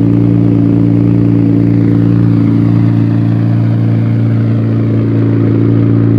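Exhaust note of a Nissan 350Z's swapped VR30 twin-turbo V6 through a titanium straight-pipe system, a loud steady drone held at one engine speed without revving.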